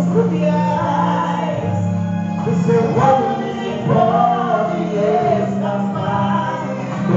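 Male voices singing a gospel song into microphones over a live band, amplified through the church's loudspeakers.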